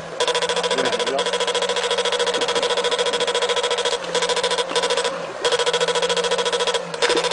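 Electric fish-shocker (electrofishing machine) buzzing in rapid pulses while its pole electrode is in the water, cutting out briefly several times as it is switched off and on.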